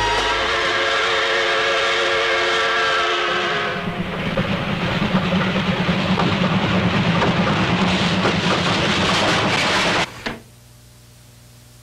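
Steam locomotive whistle blowing a steady chord of several tones for about four seconds, then the locomotive running hard through snow with a dense rushing chug. It cuts off abruptly about ten seconds in, leaving a faint low hum.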